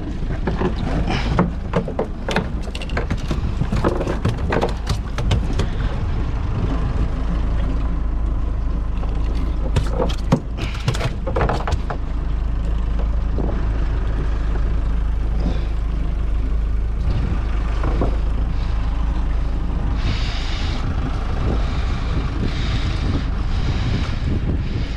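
Steady low wind rumble on the microphone aboard a small boat at sea. Many short knocks and taps come through it in the first half from handling a freshly landed black bream and its tackle on deck, and louder hissy gusts come near the end.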